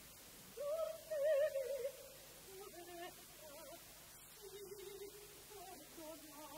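Female opera voices singing short, soft recitative phrases with vibrato, separated by brief pauses.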